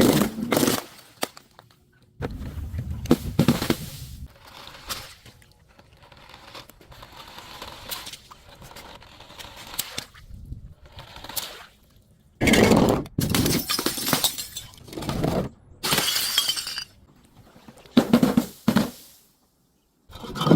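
Glass being broken and crushed, with crunching and shattering that comes in several separate bouts and quieter crackling in between.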